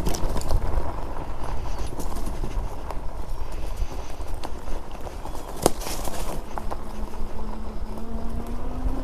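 Fat-tire e-bike being ridden uphill over rough off-road ground: a steady low rumble of tires and wind, with frequent knocks and rattles as it hits bumps.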